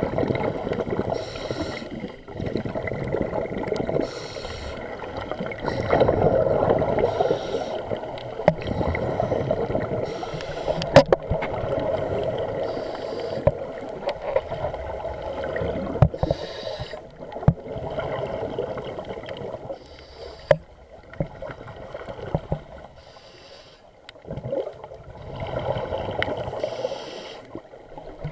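Scuba regulator breathing heard underwater through an action camera's waterproof housing: bursts of exhaled bubbles every few seconds over a muffled rumble of water, with a few sharp clicks.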